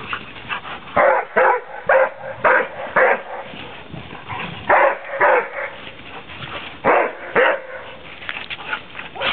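Dog barking during play over a ball: a run of five barks about half a second apart, then two pairs of barks.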